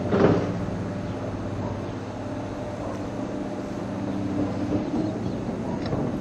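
Distant Boeing 737-600 jet engines (CFM56-7B turbofans) running with a steady rumble and hum as the airliner rolls along the runway, with a brief rush of noise just after the start.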